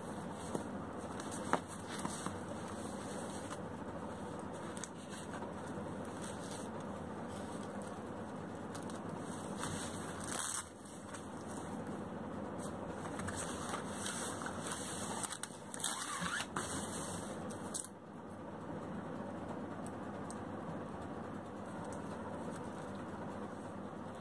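Rustling and scraping of a blue nylon-and-mesh cricket bat cover as a Gray-Nicolls bat is slid out of it, busiest in the middle stretch, over a steady background hum. A sharp click about a second and a half in.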